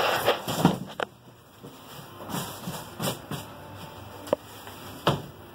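Styrofoam packing case being handled, with irregular rubbing and scraping and a few sharp knocks.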